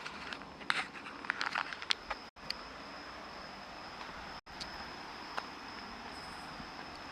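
Outdoor background with a steady high-pitched insect drone, with light clicks and scuffs in the first two seconds. The sound cuts out briefly twice.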